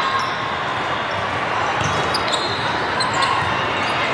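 Din of a large indoor hall with many volleyball courts in play: steady crowd chatter, with scattered sharp smacks of volleyballs being hit and bouncing on the courts.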